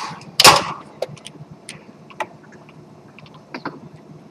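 Foosball play on a Tornado table: the ball is struck by the foosmen and knocks against the table, giving sharp clacks. One loud crack comes about half a second in, then scattered lighter knocks.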